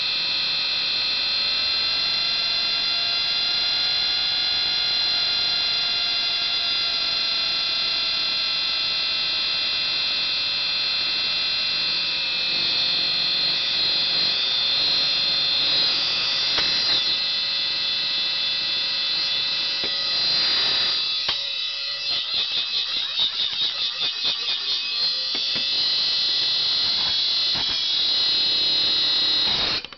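Old hard drive with its cover off, spinning and giving a loud, shrill whine of many high tones, the sound of its failing spindle bearings. A little past the middle the whine wavers and pulses about three times a second for a few seconds, and it cuts off suddenly at the very end.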